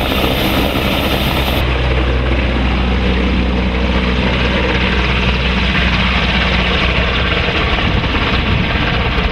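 A large three-engine military helicopter, an AgustaWestland EH101 Merlin, flying low and close, with a loud, steady drone of rotor and turbine noise. The very high hiss drops away about a second and a half in.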